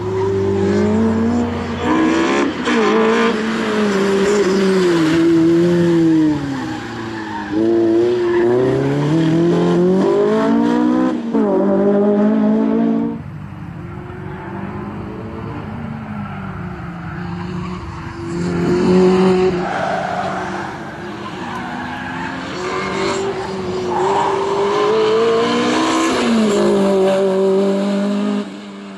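Lotus Elise's swapped-in Honda K20A four-cylinder engine revving hard, its pitch climbing and dropping again and again as the car accelerates and brakes through a cone course, with tyre squeal at times. It grows fainter for a few seconds about halfway through, then louder again.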